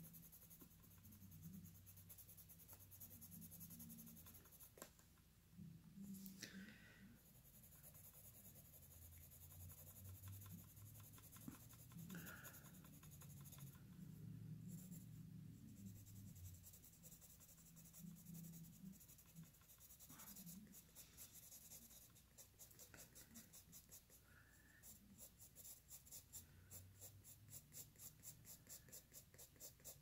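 Colored pencil shading on coloring-book paper: faint scratching strokes, turning to a run of quick, even back-and-forth strokes in the last third.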